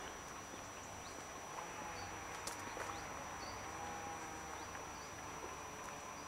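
Quiet outdoor ambience: a faint background hiss with scattered short high chirps and a steady, thin high-pitched whine, and a sharp click about two and a half seconds in.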